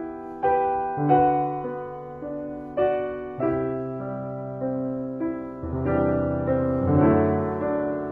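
Piano music: single notes and chords struck about once a second and left to ring out.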